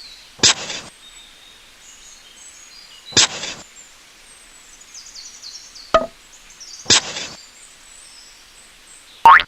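Three sharp knocks a few seconds apart, with a smaller click about six seconds in and a short loud sound rising in pitch near the end. Faint high chirps sound in the background.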